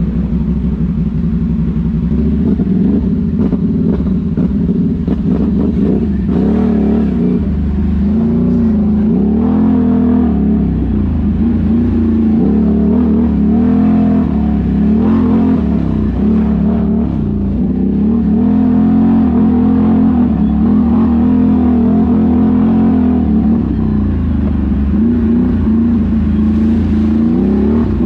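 ATV engine running under way, its pitch rising and falling over and over as the throttle is opened and eased.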